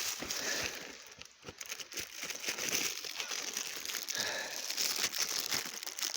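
Crinkly packaging rustled and crumpled by hand, an irregular run of crackles and crinkles with a few tearing sounds.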